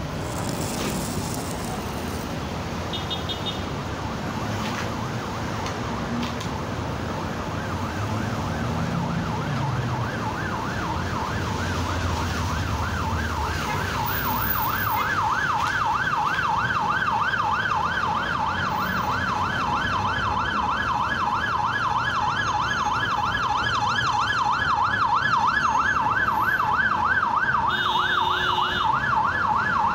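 Ambulance siren in a fast yelp, rising and falling several times a second, coming in faintly and getting louder from about halfway through, over the rumble of slow road traffic.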